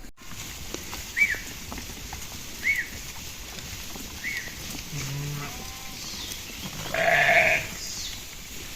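Sheep bleating: a low bleat about five seconds in and a louder, harsher one about seven seconds in. Three short high chirps come earlier.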